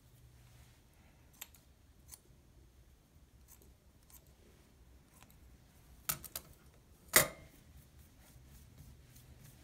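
Kitchen shears snipping stems of cat grass in a few quiet, spaced clicks, then a louder clatter of metal with a short ring about two-thirds of the way through as the shears are handled and set down on the stone counter.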